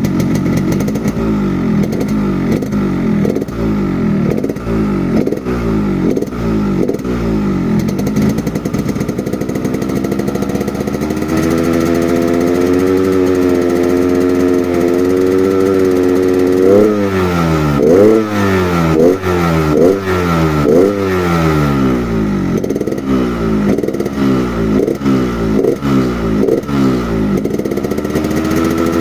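Yamaha RX-King's single-cylinder two-stroke engine revved in repeated quick throttle blips, about one a second, held at steadier higher revs for a stretch in the middle. It is tuned for the rough 'ngorok' (snoring) sound.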